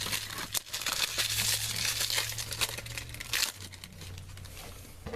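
A trading card pack's wrapper crinkling as it is handled and opened. The crinkling runs thick for about three and a half seconds, then dies down.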